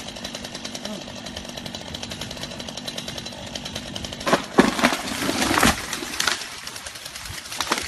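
Chainsaw engine running steadily, then a run of loud cracks and crashes about four seconds in, with the saw still going underneath.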